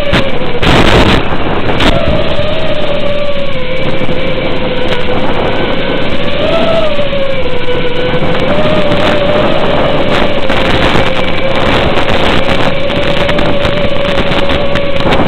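Small FPV quadcopter's electric motors whining with a steady tone whose pitch drifts slightly up and down with throttle, over a constant hiss. There is a short burst of noise about a second in.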